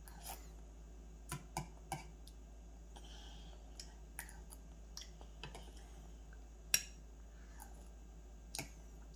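A small spoon clicking and scraping against a metal bowl of cereal and milk, in a scattering of sharp ticks, with one louder clink about two-thirds of the way through.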